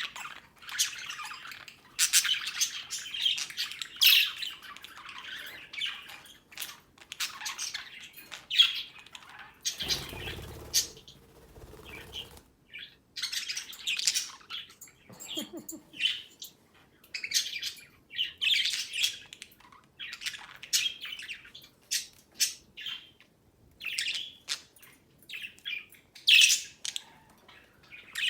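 Young budgerigars (budgies) chirping, warbling and squawking in short, irregular bursts of high calls. About ten seconds in, a low rumbling noise lasts for about two seconds.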